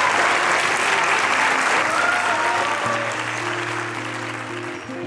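Audience applauding, the applause loudest at first and then thinning out. About three seconds in, soft music with long held notes starts under it.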